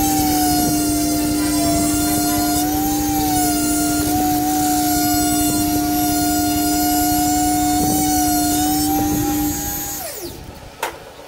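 Small handheld rotary tool running at high speed with a steady whine, its bit pressed against a plastic computer-mouse shell, the pitch wavering slightly under the load. Near the end it is switched off and its pitch falls as it spins down, followed by a couple of knocks.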